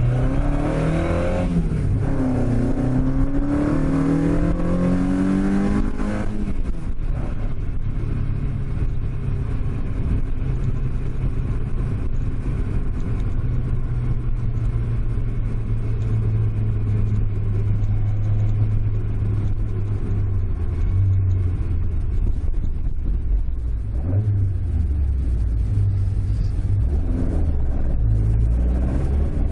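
Toyota AE86's 5-valve (20-valve) 4A-G 1.6-litre inline-four with a homemade intake manifold, heard from inside the cabin under acceleration. The engine note climbs for the first six seconds with a brief dip along the way, falls off suddenly, then holds a steady note before picking up again near the end.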